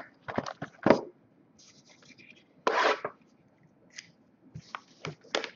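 Plastic shrink wrap being torn and pulled off a sealed box of trading cards: irregular scratchy rips and crinkles, the longest about three seconds in.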